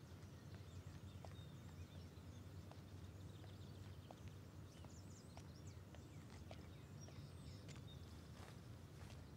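Faint evening garden ambience: scattered short bird chirps over a low, steady rumble, with a few soft clicks.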